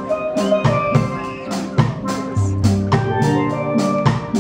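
Steel drum band playing, the pan notes ringing over a steady drum beat and bass line.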